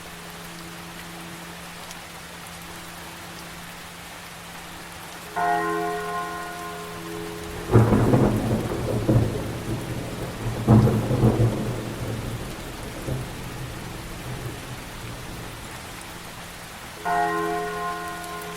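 Thunderstorm sound effect: steady rain with two heavy thunder crashes, the first about eight seconds in and the second about three seconds later. A deep bell strikes twice, once about five seconds in and again near the end, each ring fading slowly over a steady low hum.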